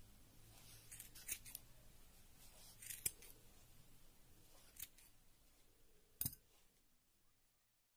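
Scissors snipping through wool yarn, trimming a pompom: a handful of quiet, sharp snips a second or two apart.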